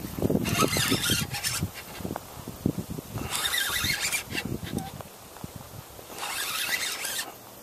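Fishing reel being cranked in three short spurts of about a second each, as a topwater frog lure is worked across the surface. Wind buffets the microphone, mostly in the first second or so.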